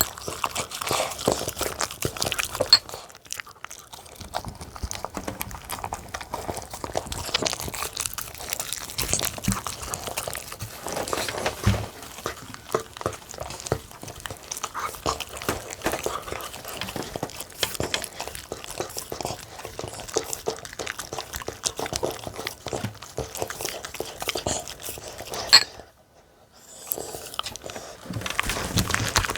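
Small dogs chewing and biting into cooked fresh dog food: a busy run of wet, clicking mouth sounds. There are short pauses about 3 seconds in and again near the end.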